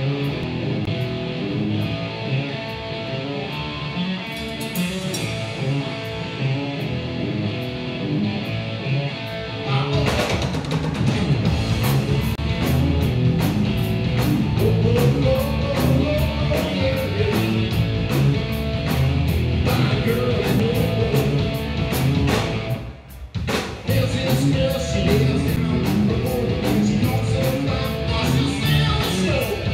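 Live rock band playing: electric guitar and drum kit with a vocal lead. The opening is lighter over steady cymbal ticks, the full band comes in about ten seconds in, and there is a brief break a little past the twenty-second mark.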